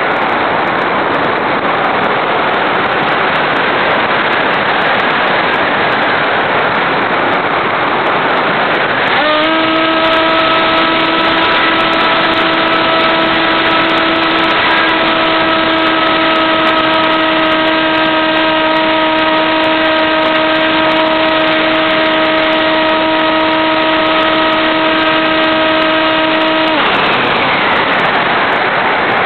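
Steady rush of airflow over the onboard camera of an AXN RC airplane in flight. About nine seconds in, the electric motor and propeller come in as a steady whine, hold for about eighteen seconds, then cut off, the pitch falling as they wind down.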